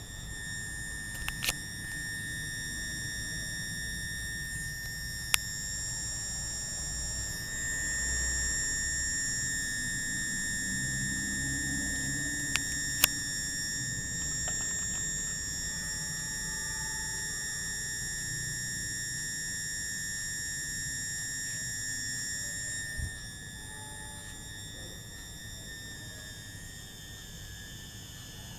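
Steady high-pitched electrical whine, one pitch with its overtones, over a low hum, from a mains transformer and coil rig fed through a rotary dimmer regulator. A few sharp clicks come in the first half, and the hum drops away about 23 seconds in.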